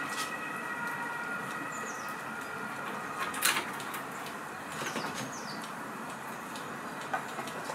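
Red squirrel scrabbling on a hanging coconut-shell feeder and its rope: a few light clicks and scratches, the loudest about three and a half seconds in. Behind it runs a steady hum with faint high steady tones that fade out partway through, and a few short high chirps.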